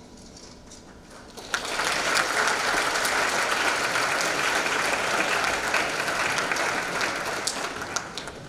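Audience applauding, starting suddenly about one and a half seconds in, holding steady, then dying away near the end.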